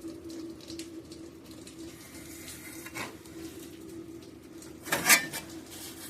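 A thin sheet-steel patch panel is handled and flexed while being test-fitted. There is a faint tap about three seconds in and a louder, short metallic clatter about five seconds in, over a steady low hum.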